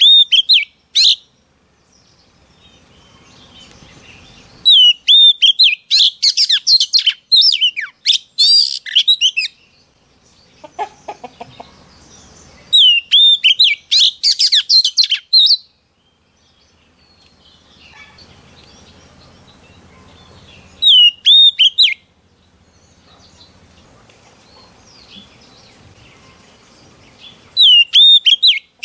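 Oriental magpie-robin singing in loud bursts of whistled phrases, sweeping notes with quick high trills above them. There are five bursts, from about a second to several seconds long, with quiet gaps of a few seconds between them.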